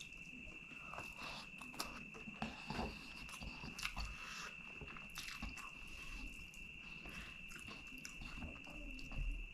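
Close-miked chewing and crunching as a handful of rice and curry is eaten by hand, with fingers mixing and squishing rice on a banana leaf: many small wet clicks and crackles. A steady high-pitched whine runs underneath.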